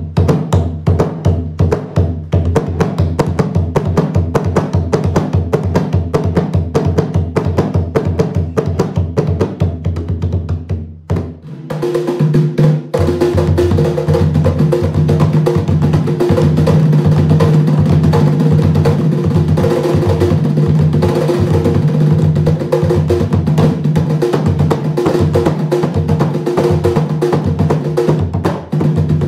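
Two Garifuna hand drums, the smaller primera and the larger segunda (the bass), played together with bare hands. First comes the fast wanaragua rhythm. After a short break about eleven seconds in, they play the punta rhythm.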